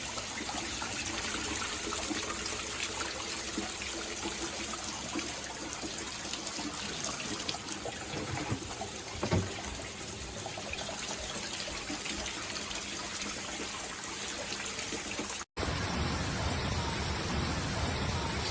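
Rushing floodwater, a steady wash of water noise. About fifteen seconds in it cuts out for a moment and a steadier hiss follows.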